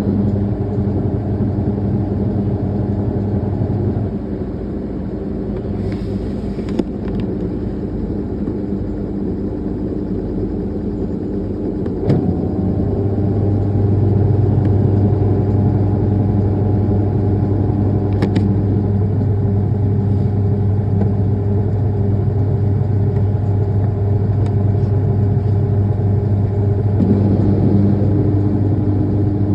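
Midea washing machine on its spin cycle: the motor and spinning drum give a steady low hum. The hum eases slightly about four seconds in; about twelve seconds in a sharp click is followed by a stronger hum with a faint rising whine, as the spin speeds up.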